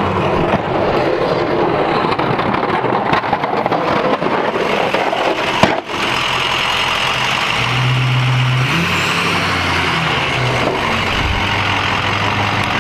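Pickup plow trucks working a snowy parking lot: a steady noisy rush of engine and plow blade pushing snow, with a low engine note rising above it about eight seconds in.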